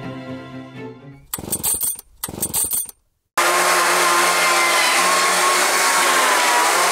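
Soft background music fades out, then come two short, harsh bursts and a brief gap. From about three and a half seconds a petrol chainsaw runs loud and steady at high revs as it cuts into a wooden log, its engine note wavering slightly.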